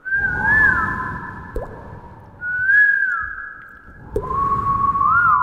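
Mouth-made sound effects layered by live looping: long whistled, wind-like tones with a lilting rise and fall, swelling in about every two seconds over a breathy hiss. Two quick rising water-drop plinks come about one and a half seconds in and again about four seconds in.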